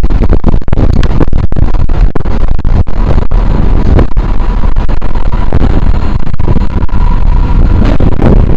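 Loud, steady rumbling noise, heaviest in the low end, with a faint steady tone partway through.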